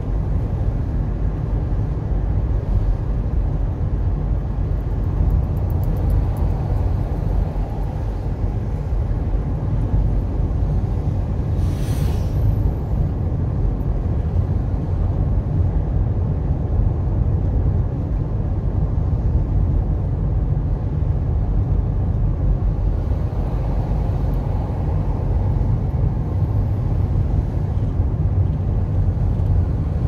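Steady low rumble of road and engine noise inside a moving car's cabin. A short click about twelve seconds in.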